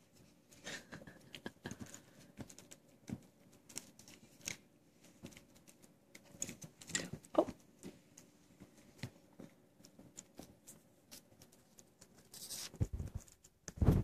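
Dogs chewing and playing with toys: soft scattered clicks, scrapes and rustles of teeth and paws on a plastic chew toy and bone, with a few louder thumps near the end.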